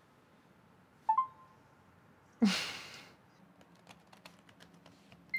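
Typing on a computer keyboard: a run of light key clicks in the second half. A short two-note electronic chat alert sounds about a second in and a single high blip near the end, and a louder breathy rush of noise, under a second long, comes about two and a half seconds in.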